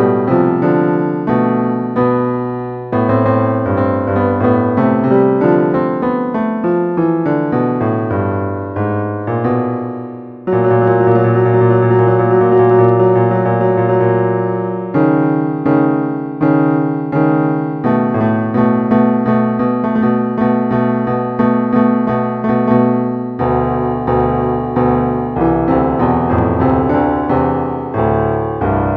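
Piano notes from a smartphone piano app: a melody with low accompanying notes, each note striking and fading. It turns to a dense run of rapid notes from about ten seconds in, lasting several seconds.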